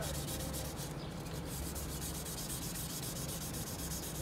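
Wet sandpaper rubbed by hand over a Mitsubishi Lancer Evolution X's plastic headlight lens in quick, even back-and-forth strokes, several a second. This is the wet-sanding stage of a headlight restoration, taking off the yellowed, oxidised surface.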